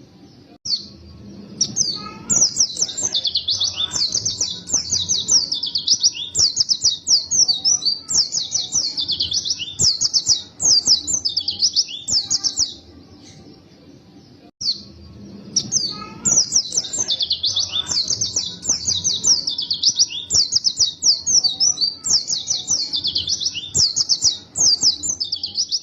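A white-eye (pleci) singing a long, rapid, high-pitched chattering song of fast twittering phrases, pausing about halfway through and then starting again abruptly.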